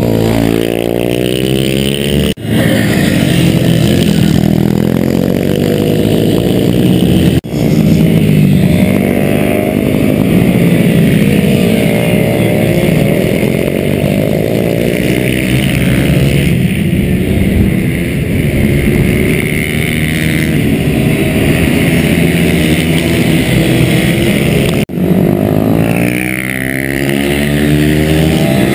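Several small supermoto motorcycles lapping a tight circuit, their engines revving up and down as they brake into and accelerate out of the corners, with many passes overlapping. The sound breaks off briefly three times.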